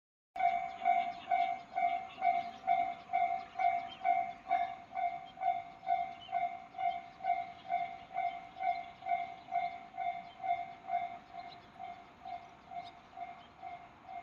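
Japanese level-crossing alarm ringing its evenly repeated electronic clang about twice a second, slowly getting a little quieter: the crossing warning of an approaching train.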